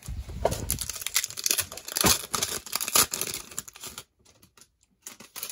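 A plastic cello pack of Prizm Draft football cards being torn open and crinkled, a dense crackling for about four seconds with two sharper, louder rips around two and three seconds in, then only faint ticks of handling.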